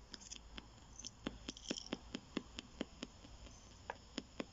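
PSB7 spirit box sweeping the AM band at its 250 ms scan rate. It gives a faint, even click about four times a second as it steps from station to station, with hiss between the clicks.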